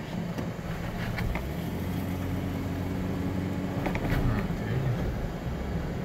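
Cabin noise of a 4x4 driving on beach sand: a steady low engine drone that holds an extra steady note from about two seconds in until just past four, with a few light rattles.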